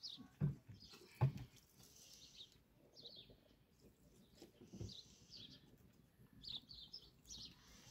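Small birds chirping in short high calls again and again, with a few dull knocks, the loudest about half a second and just over a second in.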